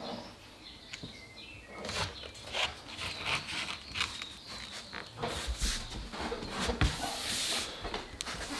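Hands sliding and pressing an engineered hardwood floorboard down into glued subfloor: irregular soft rubs, taps and knocks of the plank against the neighbouring board.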